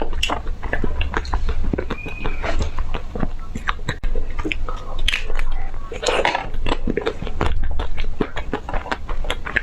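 Close-up biting and chewing of crunchy ice cream: a dense, irregular run of sharp crackling crunches, with a few breathy mouth sounds in between.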